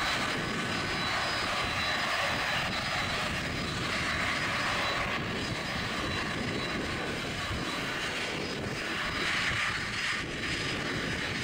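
Boeing 767-400ER's twin turbofan engines at taxi power: a steady rumble and hiss with a thin, high, even whine.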